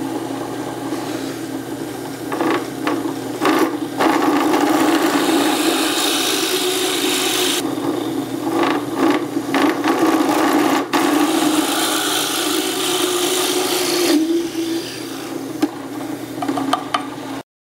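Drill press motor running with a steady hum while its bit bores dowel holes into a wooden block, with rough cutting noise that grows louder through the middle as the bit is fed in, with short breaks between passes. The sound cuts off suddenly near the end.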